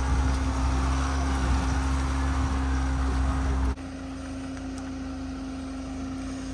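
Mahindra Scorpio N SUV running with a heavy, steady rumble of wind on the microphone. About halfway through, the sound cuts abruptly to a quieter, steady engine hum as the SUV creeps over a muddy off-road course.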